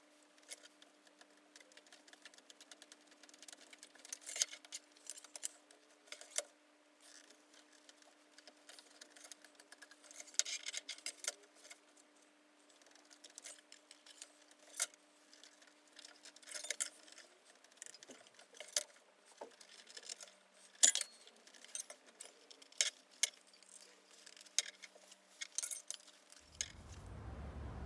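Paper being creased and folded by hand on a workbench: scattered sharp crinkles, crackles and light taps at irregular intervals, over a faint steady hum that stops a little past halfway. Near the end a low rumble takes over.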